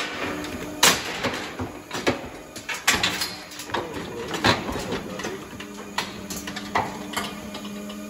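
Irregular metal clanks and knocks from a cattle hoof-trimming chute as a cow is held in it and its leg is handled, over a steady low hum.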